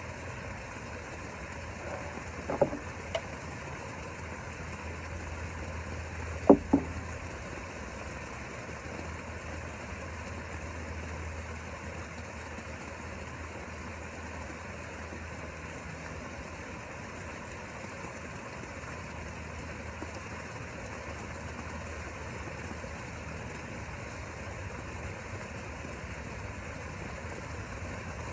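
A steady low hum of a running motor, with two short pairs of sharp knocks about two and a half and six and a half seconds in.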